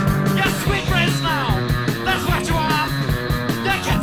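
Noisy post-punk band recording: electric guitars and bass over a steady drum beat, with repeated falling sweeps in pitch.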